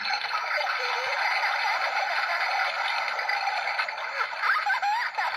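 Toy board book's push-button toilet-flush sound effect playing through its small built-in speaker: a steady rush of water with gurgling.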